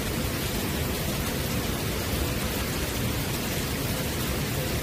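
Steady rain falling on a wet wooden deck and puddles: an even hiss with a low rumble underneath.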